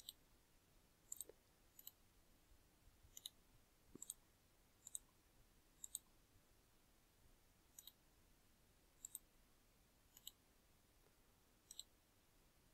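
Faint computer mouse clicks, about a dozen scattered irregularly and often in quick pairs, with near silence between.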